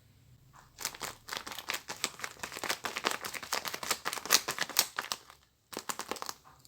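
Paper crinkling and rustling in quick crackles as a handmade paper squishy package is handled and unwrapped. It starts about a second in and breaks off briefly near the end before resuming.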